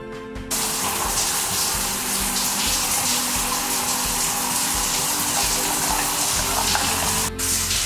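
Water running from a chrome single-lever faucet and splashing into a glass sink basin. It starts about half a second in, as a steady loud hiss, and breaks off briefly near the end.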